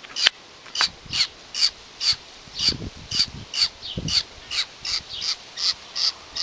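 Baby bird being hand-fed worms, giving a steady run of short, raspy begging calls, about two or three a second.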